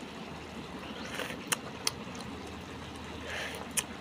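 Beetles in tomato sauce simmering in a pan: a few sharp pops, three of them, over a steady low hum.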